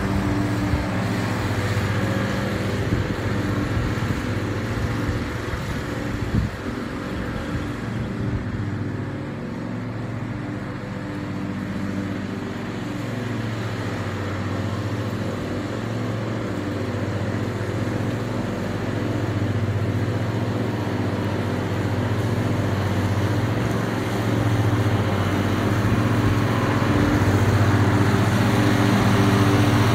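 An engine running steadily at a constant pitch, dipping slightly in the middle and growing louder toward the end.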